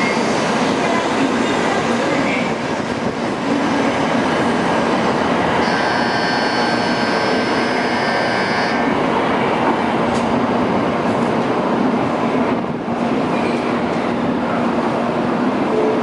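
Shinkansen train moving along the station platform: a loud, steady rush of train noise, with a brief high-pitched whine from about six to nine seconds in.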